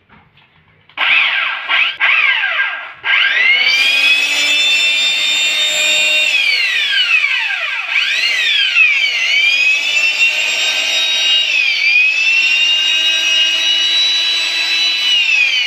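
Corded electric chainsaw motor (5016 type) test-run with a newly fitted armature and carbon brushes: a few short trigger blips whose whine drops away, then about three seconds in it runs up to a steady high whine, is let off and spun up again several times, and starts winding down at the end.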